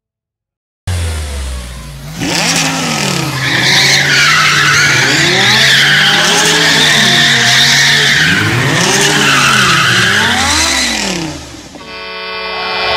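Car drifting sound effect, starting about a second in: an engine revving up and down in waves under long, wavering tyre squeal. Near the end the squeal dies away and a short horn blast of several steady tones sounds.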